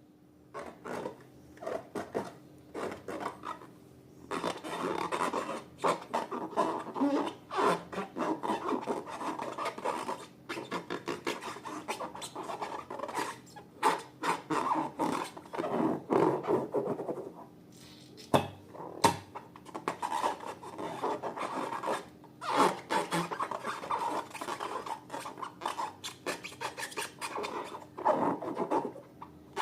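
Slime being mixed and worked by hand: dense, irregular sticky clicks and crackles with a rubbing sound, easing off briefly about two-thirds of the way through.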